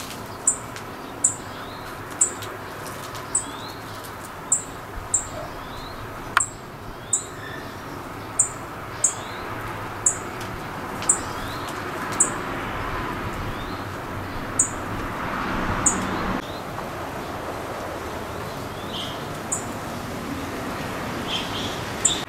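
A small bird calling with short, very high-pitched chirps that fall sharply in pitch, repeated about once a second with a pause in the later part. A few softer, lower chirps come in between, and there is one sharp click about six seconds in.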